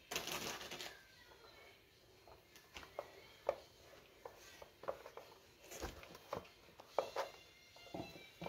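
Handling noise: a short rustle as a clothes iron is lifted off a plastic digital kitchen scale, then about a dozen faint, irregular clicks and taps as the iron and its cord are handled and gathered up.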